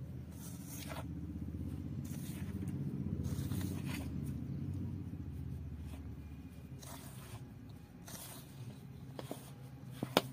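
Hands rubbing flour with oil in a bowl: short dry scraping strokes. Under them a passing motor vehicle's low rumble swells and fades, loudest three to four seconds in, and a sharp click sounds near the end.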